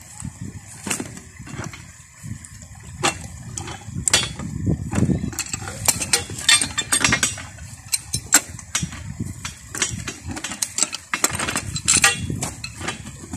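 Steel SPT split-spoon sampler tube being worked open with a pipe wrench among steel drill rods: irregular sharp metallic clicks, knocks and clinks.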